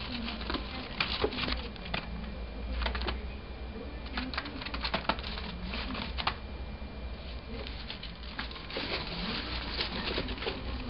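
Artificial plastic houseplant leaves rustling and crackling as a Eurasian red squirrel drags them along, with irregular sharp clicks and scrabbling.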